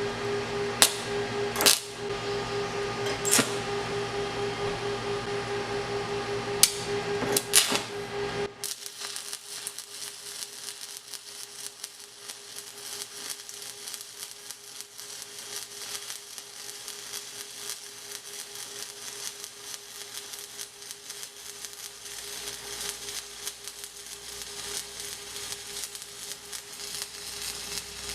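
A stick welder hums steadily, with a few sharp clicks. About eight seconds in, the arc strikes and a 1/8-inch Vulcan 7018 low-hydrogen rod burns with an even crackling sizzle.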